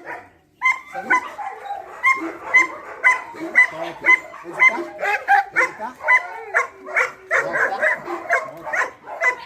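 Dog barking over and over in quick, sharp barks, about two a second, mixed with higher yips and whines.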